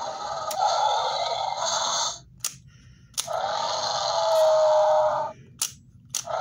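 Jurassic World Roar Attack Metriacanthosaurus toy playing its electronic roar from its built-in speaker: two roars of about two seconds each, the second ending in a held, higher note. Sharp clicks of the action button come between them, and a third roar starts near the end.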